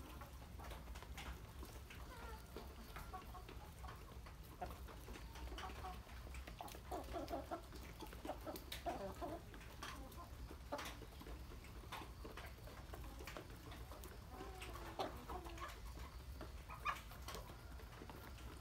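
A flock of domestic chickens clucking softly while feeding, with scattered sharp taps of beaks pecking at a plastic feed tray.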